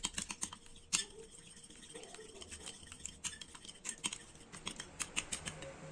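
Metal spoon stirring in a glass bowl, clinking and scraping against the glass in quick, irregular clicks as toothpaste is worked into warm water to dissolve it.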